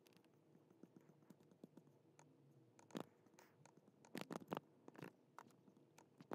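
Near silence with a few faint clicks and taps from a laptop's keyboard and trackpad, most of them in the second half.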